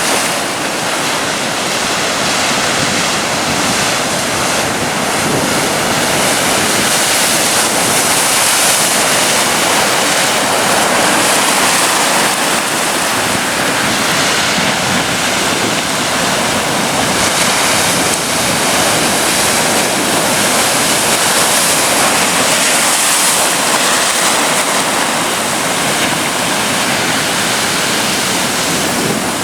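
Atlantic surf on a beach: a loud, continuous wash of breaking waves that swells and eases a little every few seconds.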